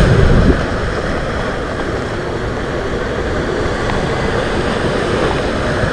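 Rough sea washing and surging, a steady noisy wash. Wind buffets the microphone with a heavy rumble that drops away about half a second in.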